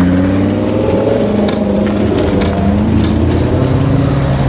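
Engines of a convoy of sports cars, including a Ferrari 458 Spider and a Ferrari California, driving past close by. Several engine notes rise and fall at once over a steady low engine hum, with a few sharp clicks.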